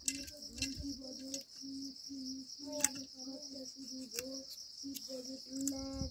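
Crickets chirring in a steady high-pitched drone. Over it, a low tone repeats in short pieces, and light clicks come here and there.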